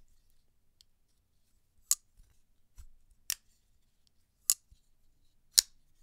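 TW Price Dawn titanium frame-lock flipper knife on ceramic bearings, its blade flicked open and shut: four sharp clicky, clacky snaps about a second apart, with a fainter one in between.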